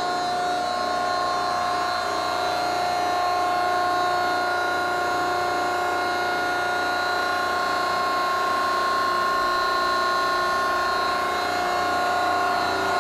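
Hydraulic power unit of a Greenerd 10-ton C-frame hydraulic press, its 5 hp electric motor and pump running at idle with a steady whine of several held tones.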